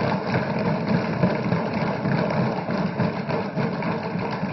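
Many legislators thumping their wooden desks in approval of a unanimously adopted resolution: a dense, continuous patter of hand strikes that eases slightly near the end.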